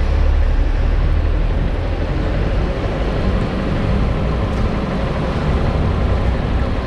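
Honda CG160 single-cylinder motorcycle on the move: heavy wind rush over the microphone with the engine's steady running beneath it.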